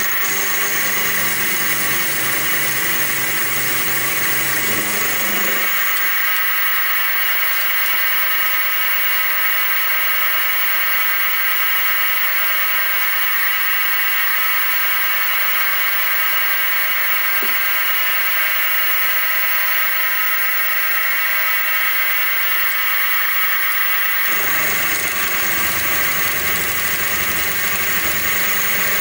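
Sieg SX2P mini-mill running with a 9 mm end mill cutting a channel into a metal block, a steady motor and spindle whine. A lower rumble joins it for the first six seconds and again from about twenty-four seconds in.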